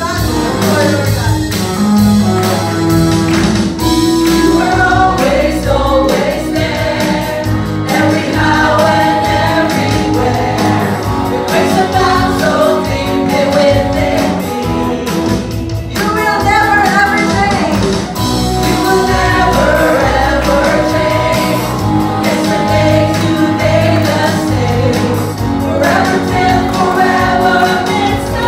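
Live gospel worship song: a woman sings lead into a microphone over an amplified band with guitars, joined by other voices singing along.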